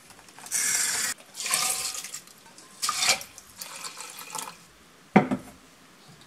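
Soaked brown rice and water poured from a stainless steel bowl into a rice cooker's inner pot in several short pours and splashes, filling the pot to the water line. A single knock about five seconds in.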